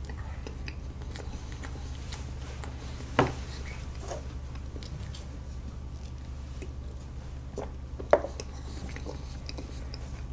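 Quiet eating sounds: soft chewing and small clicks of a metal fork on a plate of cake, with two sharper knocks, about three seconds in and again about eight seconds in, over a steady low hum.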